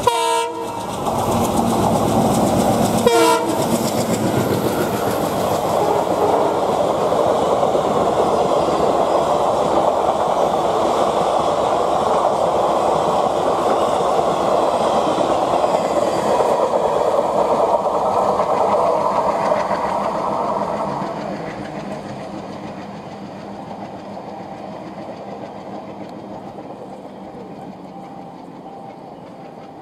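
Indian Railways WDM-3A ALCO diesel locomotive passing close at speed, its engine heavy for the first three seconds, with two short horn blasts. Its ICF passenger coaches then rush by with a steady rolling noise and clickety-clack of wheels over rail joints, fading away after about twenty seconds as the train recedes.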